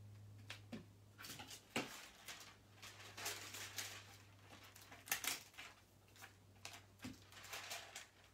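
Faint rustling and crackling of thin plastic and paper craft sheets being picked up and handled on a table, with a few light knocks, over a low steady hum.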